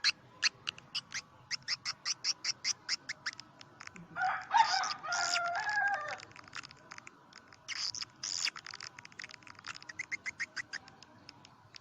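Swiftlet calls: rapid runs of short chirps at about six a second, broken about four seconds in by a louder, harsher squawking call lasting about two seconds, with another loud call near eight seconds before the chirping resumes.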